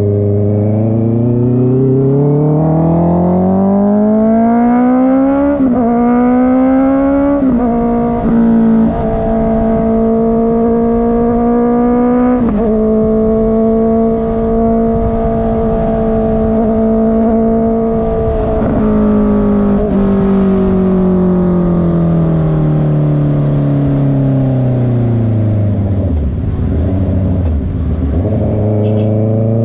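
Honda CB650R's inline-four engine through a loud exhaust, revving up under acceleration with two quick upshifts, holding a steady cruise, then the revs falling away as the bike slows before picking up again near the end.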